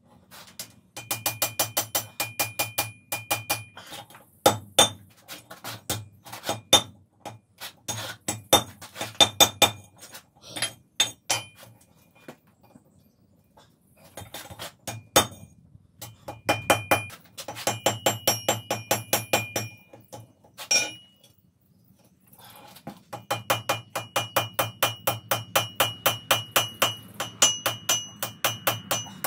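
Ball-peen hammer striking red-hot wrought iron on an anvil in quick runs of about four to five blows a second, each blow leaving the anvil ringing. The runs break off briefly twice.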